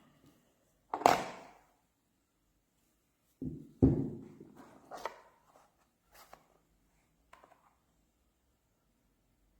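A few knocks and clunks of hard objects being handled and set down: a loud knock about a second in, a heavier clunk with a short rattle around four seconds, then three lighter taps.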